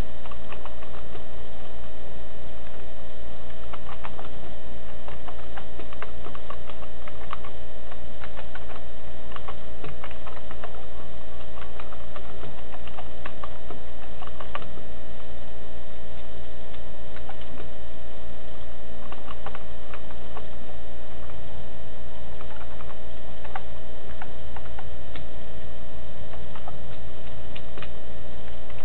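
Computer keyboard keys clicking in irregular runs as text is typed, over a steady hum.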